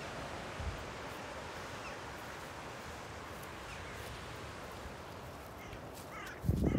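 Sea surf washing against the foot of the cliffs, with wind, and a few short seabird calls over it, more of them near the end. A loud low buffet on the microphone comes about six and a half seconds in.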